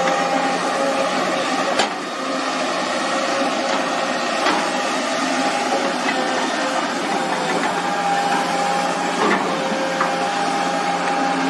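Excavator engine running steadily with a constant whine, and a few sharp metallic knocks, the loudest about two seconds in.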